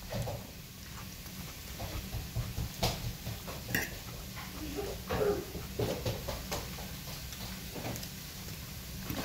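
Close-up chewing and mouth sounds of a man eating rice, with a few sharp clicks of a metal fork against the plate, about three and four seconds in.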